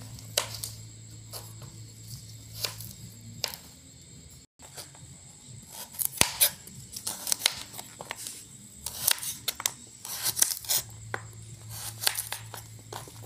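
Knife slicing through a raw carrot on a plastic cutting board: a run of sharp clicks and taps, coming thicker in the second half.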